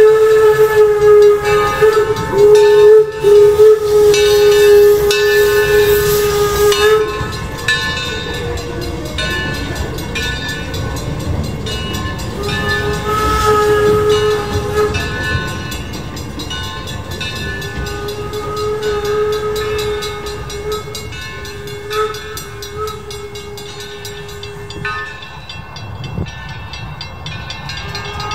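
A steam locomotive's whistle blowing one long, loud blast, then further quieter blasts later on. Under it is the low rumble of the train's cars rolling past.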